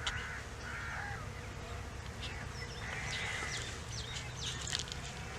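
Several birds calling and chirping in short phrases over a steady low buzz of honey bees.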